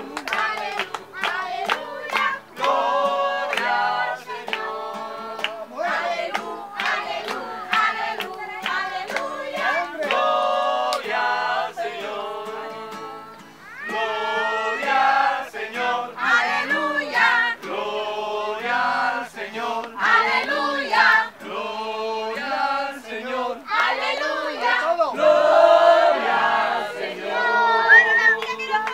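A worship song sung by a group of voices, with musical accompaniment. The song dips briefly about halfway through, then carries on.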